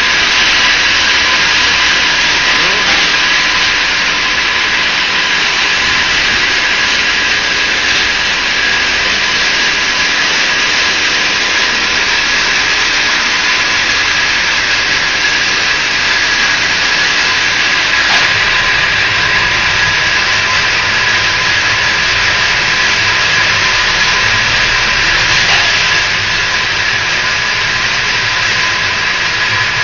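Hexagonal wire netting machine running: a steady loud mechanical noise with a constant high whine and no clear beat.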